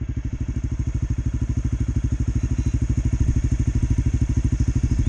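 Honda CRF250 Rally's single-cylinder four-stroke engine idling with an even, rapid pulsing beat.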